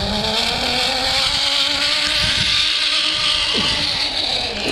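A motor engine running steadily, its pitch rising a little over the first couple of seconds and then holding.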